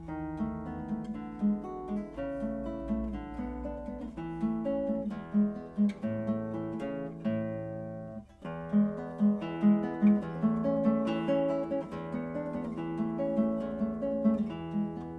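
Background music played on acoustic guitar, a run of plucked notes, with a brief break about eight seconds in before it picks up again.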